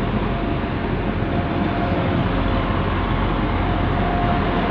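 Diesel passenger train's engines running with a steady drone and a faint whine as it departs.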